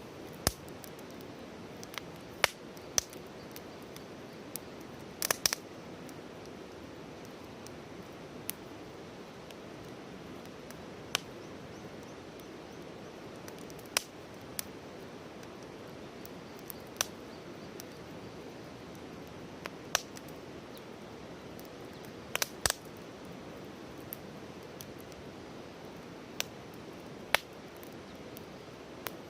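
Wood campfire crackling: irregular sharp pops and snaps, one every second or two, over a steady low hiss.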